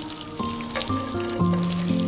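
Background music, a melody of held notes that step from one pitch to the next, over spiced oil sizzling and crackling in a steel pan.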